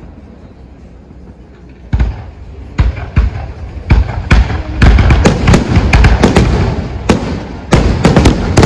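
Aerial fireworks bursting. After a lull in which the last rumble dies away, single bangs begin about two seconds in. They quicken into a dense run of overlapping booms and cracks from about halfway on.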